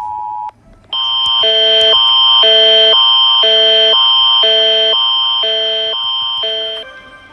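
Emergency alert tones. The steady two-tone attention signal of the Emergency Alert System cuts off about half a second in. About a second in, a loud electronic alarm starts: steady high tones with lower tones pulsing on and off about once a second, six times, before it stops near the end.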